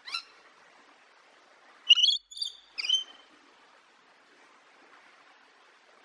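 Rainbow lorikeet calling: a brief rising squeak, then three short, high-pitched calls in quick succession about two to three seconds in.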